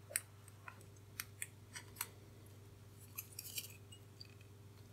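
Faint, scattered small clicks and ticks of a metal-film resistor's wire leads being pushed into the holes of a printed circuit board and the board being handled and turned over, with a short cluster of clicks about three and a half seconds in.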